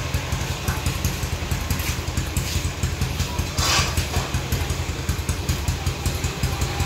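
Steady low engine rumble of street traffic, with a brief hissing swell a little under four seconds in.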